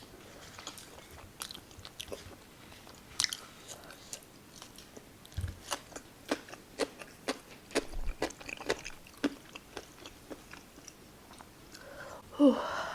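Close-miked chewing of food, with irregular crunches and wet mouth clicks. A short voice sound comes near the end.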